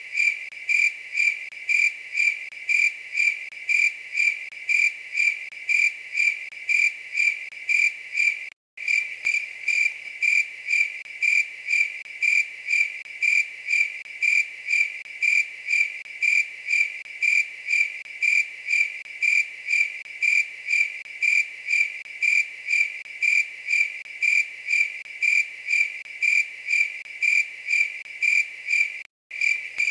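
A single chirping night insect, the 'night grasshopper' of the title, with a cricket-like song: a steady, even run of about two high, clear chirps a second. The sound cuts out completely for a moment twice, about nine seconds in and just before the end.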